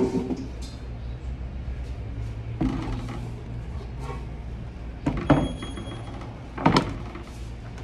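Metal-framed chairs being set upside down onto tables: three knocks and clatters, nearly three seconds in, about five seconds in with a brief metallic ring, and near seven seconds. A low steady hum runs underneath.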